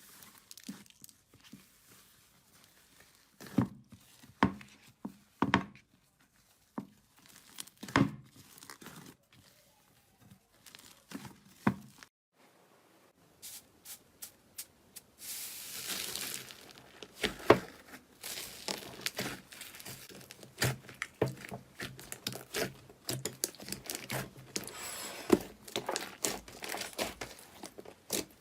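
Slime being handled: scattered sticky pops and squelches. After a short break about halfway, a dense crackling, crinkling run of small pops follows, as of a crunchy slime being squeezed and pressed.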